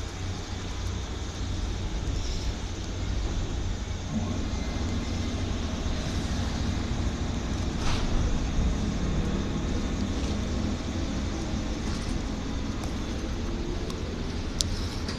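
JR 201 series electric train standing at the station platform, a steady low mechanical hum with a short knock about eight seconds in.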